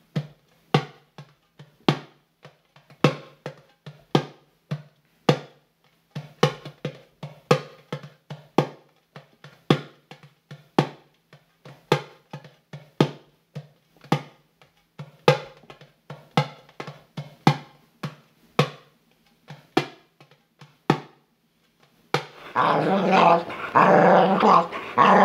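Sparse percussive music, sharp drum-like hits about once or twice a second over a low steady hum, stopping about 21 seconds in. About a second later a dog starts growling loudly and without pause.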